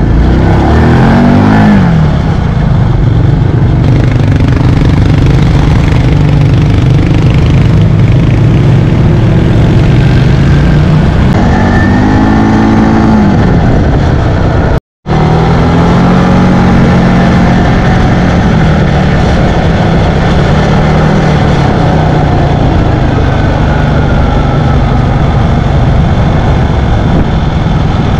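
Quad bike engine running under way, revving up and easing off several times as the throttle opens and closes. The sound cuts out for a moment a little before halfway, then the engine carries on.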